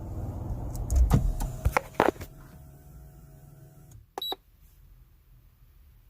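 A steady low hum with a few knocks and clicks cuts off about four seconds in, followed by a short, high electronic double beep.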